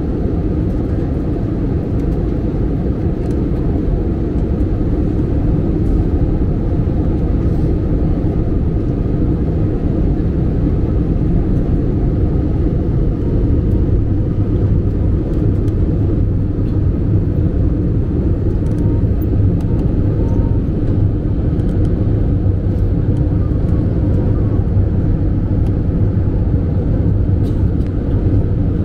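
Steady low rumble of a jet airliner's engines and rushing airflow, heard inside the cabin by the over-wing window in flight. A low drone grows a little stronger about halfway through.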